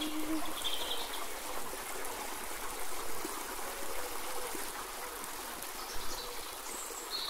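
Water running and trickling steadily, like a small stream.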